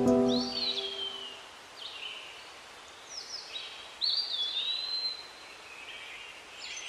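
A songbird calling: a series of short chirps and whistled phrases that swoop up and down in pitch, the longest about four seconds in. The tail of soft music fades out in the first second.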